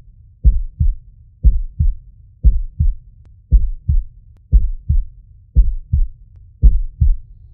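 Heartbeat sound in the soundtrack: a slow lub-dub double thump repeating about once a second, seven times.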